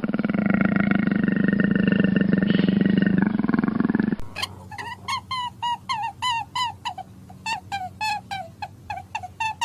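A large animal's deep, rasping growl that cuts off suddenly about four seconds in. It is followed by a rapid series of short, repeated bird calls, about two or three a second.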